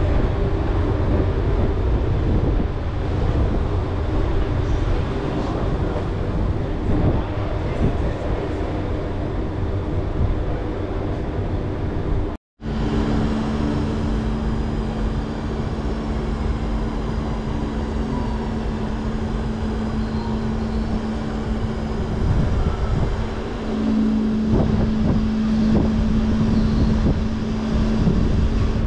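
Electric hybrid car ferry's machinery running, a steady low rumble heard on the open car deck with wind on the microphone. The sound cuts out for a moment about 12 seconds in. After that a steady hum joins and grows louder near the end as the ferry comes in to dock.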